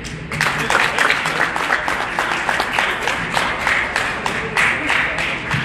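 Audience applauding, many hands clapping at once, starting just after a speech ends.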